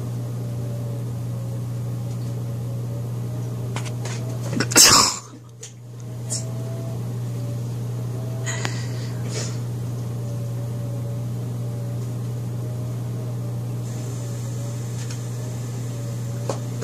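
A steady low machine hum with a faint wavering higher tone over it, broken about five seconds in by one short, loud burst of noise and later by a few faint ticks.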